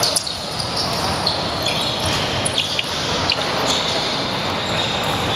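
Basketball game in a gym: short high sneaker squeaks on the court and ball bounces over a steady murmur of the crowd echoing in the hall.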